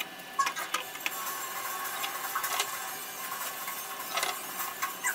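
Plastic spring clamps being set on a laser-cut lampshade frame during glue-up, with a series of irregular clicks, knocks and rattles from the clamps and the parts being handled.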